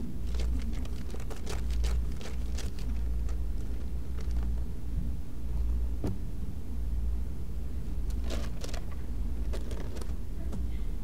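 Bible pages being turned and rustled, short crackles clustered in the first few seconds and again near the end, over a steady low rumble.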